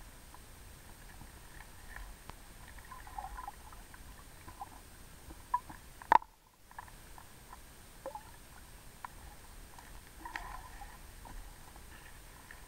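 Underwater creek sound picked up by a submerged camera: scattered small clicks and soft gurgles of water moving over stones and gravel, with one sharp click about six seconds in, then a moment of silence.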